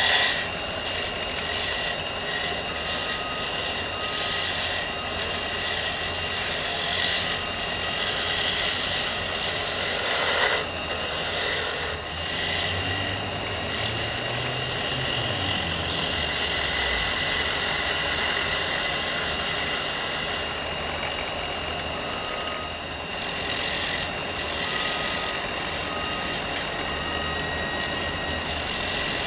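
Wood lathe spinning a holly pen blank while a hand-held turning tool cuts into it, throwing off shavings: a steady motor whine under the continuous noise of the cut.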